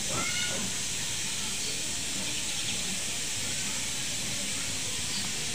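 A steady, even hiss that starts suddenly and holds at one level.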